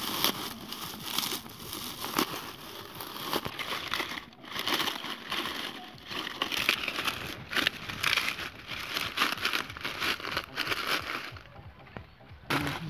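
Dry, papery leaves crackling and rustling as hands press and stuff them down into a basket, in rapid irregular crinkles that go quieter briefly near the end.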